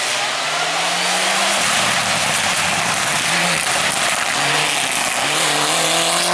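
Rally car engine at full throttle on a hill climb, accelerating hard. The pitch climbs, drops back at each gear change and climbs again, over loud tyre and road noise.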